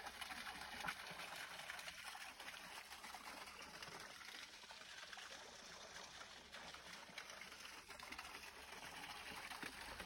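Faint, steady trickle of a small waterfall spilling over rock into a pool.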